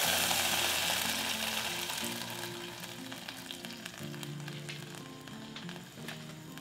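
A hot sauté pan of fried onions and sliced button mushrooms sizzling as mushroom stock is poured in. The sizzle is loud at first and dies down over the first two to three seconds to faint crackling and popping, under soft background music.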